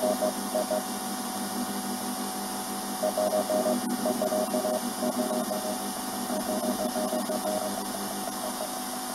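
Regenerative shortwave receiver hissing with static while a steady beeping tone is keyed on and off in runs of short beeps, an unidentified signal on the band.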